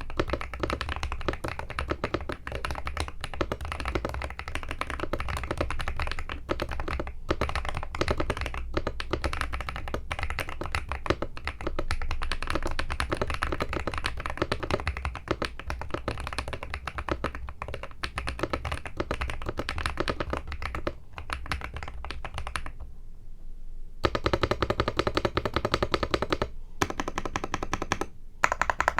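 Typing on a Zuoya GMK67 mechanical keyboard with lubed Akko V3 Cream Blue tactile switches, tape-modded, and PBT keycaps: a dense, continuous stream of key clacks. It stops for about a second near the end, then resumes louder.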